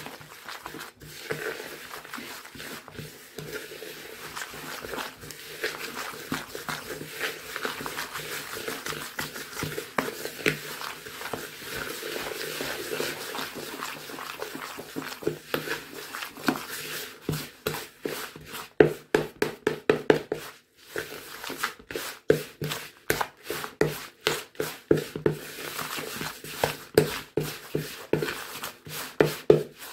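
A spoon stirring a stiff oatmeal biscuit mixture in a large plastic mixing bowl, scraping through the oats and clicking against the bowl. About halfway through, the strokes turn into a steady run of sharper knocks, about two or three a second, as the mixture comes together.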